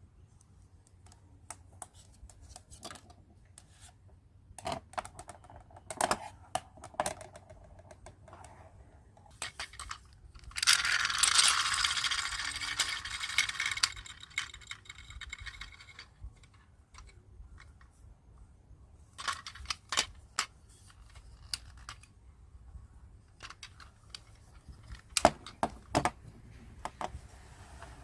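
Small plastic toy pieces being handled: scattered clicks, taps and light clatter. About ten seconds in comes a louder, hissing stretch lasting some three seconds.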